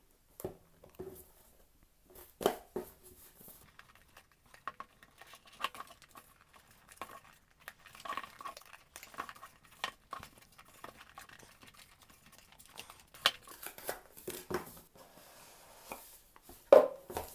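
A speed cube's retail packaging being opened by hand: irregular tearing, crinkling and rustling with scattered clicks and light knocks, two sharper knocks standing out, one about two and a half seconds in and one near the end.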